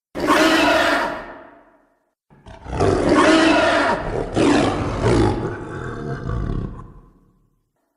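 Homemade monster roar sound effects for the creature Doomsday: a roar that fades out over about two seconds, then after a short silence a longer roar with several surges that slowly dies away.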